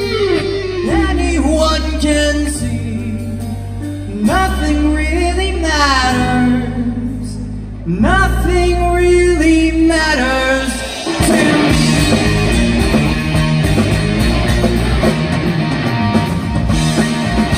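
Live rock band playing, a singer over electric guitar and bass, with the bass moving in long held notes. About eleven seconds in the sound gets fuller and busier.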